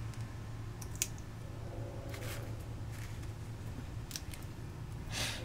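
Faint rustling and a few small sharp clicks as fingers press and smooth a vinyl decal onto a painted brake caliper, with plastic masking sheet crinkling around it.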